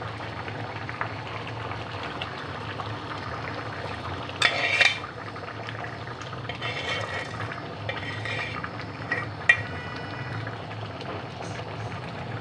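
A large aluminium pot of rice and jaggery syrup bubbling at a steady boil, with metal-on-metal scraping and clinking as a metal bowl of fried nuts is tipped and scraped into it. There is a loud scrape about four and a half seconds in and a sharp clink near the end.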